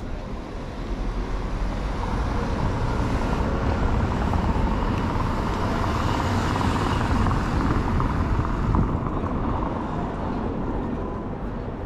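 Cars driving slowly past on a paved town street: engine and tyre noise that swells over a few seconds and fades away near the end.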